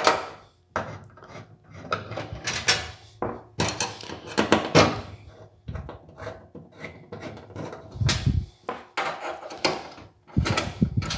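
Woven stainless steel mesh scraping and rattling against a grill shell as it is held down and traced along, in short irregular bursts. There is a dull knock about eight seconds in and another near the end.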